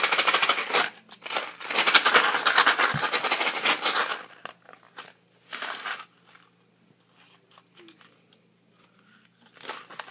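Jelly beans rattling inside a small cardboard box of Bertie Bott's Every Flavour Beans as it is shaken hard, in two spells over the first four seconds. After that come a few faint rustles and crinkles as the box is handled.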